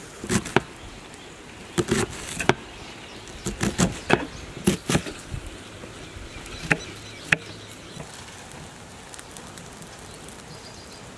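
Knife chopping spring onions on a cutting board: a run of irregular sharp knocks through the first seven seconds or so, after which they stop.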